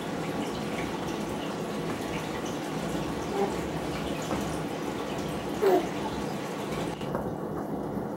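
A baby making a short rising coo about two-thirds of the way in, with a softer one a little earlier, over a steady rushing background noise.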